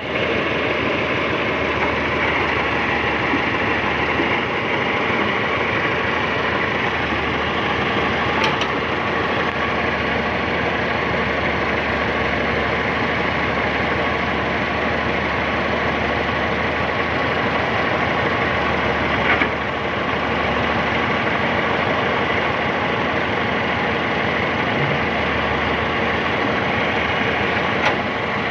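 Excavator's diesel engine running steadily, with about three brief knocks spread through it.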